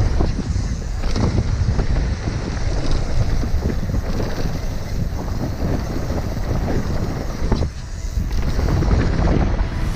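Wind buffeting the microphone over the rumble of knobby tyres on a dry dirt trail as an enduro mountain bike descends at speed, with the bike clattering over bumps. The noise drops briefly about eight seconds in.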